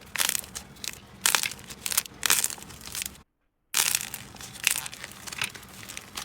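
Slime being squeezed and pressed in the hands, giving a dense run of small crackles and pops. It drops to dead silence for about half a second a little past halfway, then the crackling resumes.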